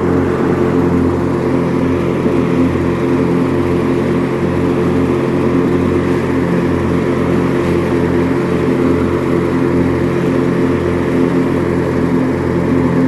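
White LT 1650 riding mower's Briggs & Stratton opposed-twin engine running at a steady speed while mowing with the deck engaged.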